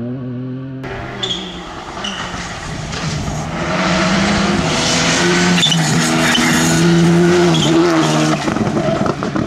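Škoda Fabia RS Rally2's turbocharged 1.6-litre four-cylinder engine at full attack on a gravel stage, its pitch rising and dropping with the throttle and gear changes. It grows loudest as the car slides past about seven seconds in, with gravel hissing from the tyres.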